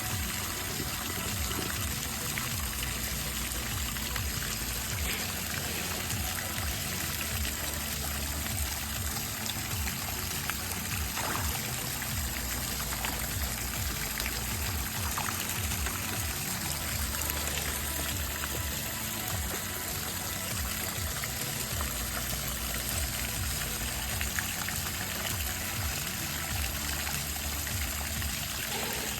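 Water splashing and trickling steadily into a garden koi pond.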